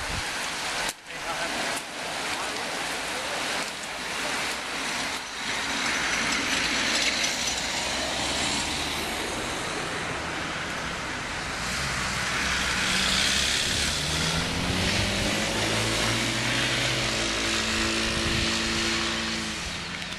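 Motor vehicles passing along the road with outdoor noise, an engine note rising in pitch about three quarters of the way through.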